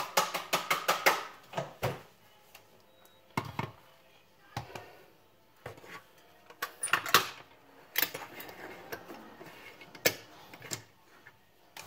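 Knocking and clicking on the housing of an AEG CX7 cordless stick vacuum as it is taken apart: a quick run of knocks at first, then scattered single knocks and clicks of parts being handled.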